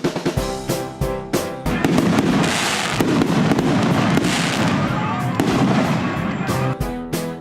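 Intro music with sharp drum hits. From about two seconds in, a dense crackle of fireworks covers it for several seconds before the music comes back clear near the end.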